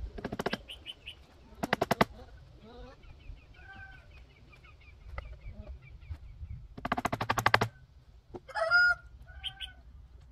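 Chickens clucking and calling in short bent notes, with three brief bursts of rapid clicking rattle, the longest near the end.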